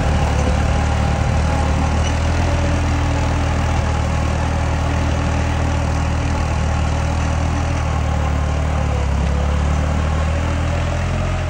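Tractor diesel engine running steadily under load while pulling a disc plough through hard, dry soil.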